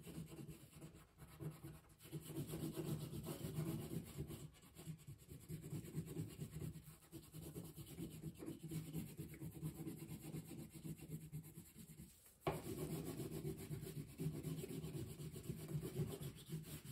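Crayon scribbled rapidly back and forth on paper, colouring in an area. The strokes stop briefly about twelve seconds in and then start again.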